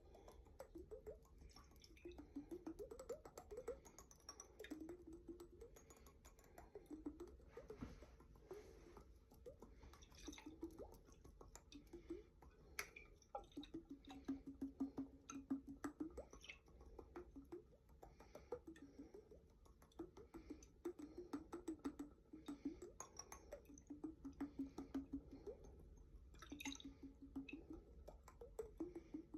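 Water sloshing and gurgling inside a jar, in short wavering bursts, with many small clicks.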